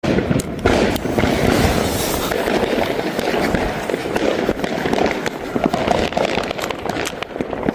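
Firework cake going off: dense, continuous crackling with many sharp pops packed close together.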